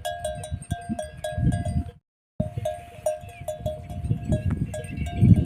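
Metal bells ringing in quick, repeated clinks, over a low rumbling.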